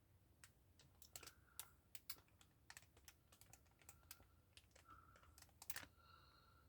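Faint, irregular light clicks and ticks of plastic-wrapped yarn cakes being handled.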